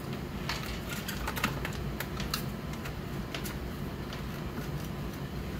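Irregular light plastic clicks and taps as the apheresis channel and its tubing are handled and pressed down into the centrifuge filler, over a low steady hum.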